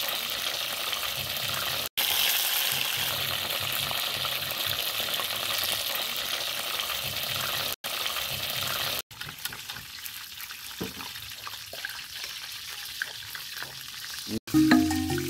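Chicken frying in hot oil in a black iron wok over a wood fire: a steady sizzle. After about nine seconds the sizzle is quieter, with a few light scrapes and clicks of the metal ladle in the pan, and music comes in near the end.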